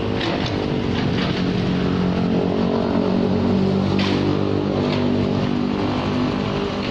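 Komatsu PC78UU excavator's diesel engine running steadily during demolition, with a few sharp knocks of breaking wall and falling debris near the start and again about four seconds in.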